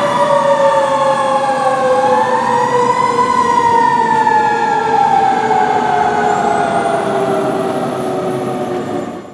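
Fire truck sirens wailing: two siren tones slide slowly up and down, then drift gradually lower, growing a little fainter as the apparatus drive away.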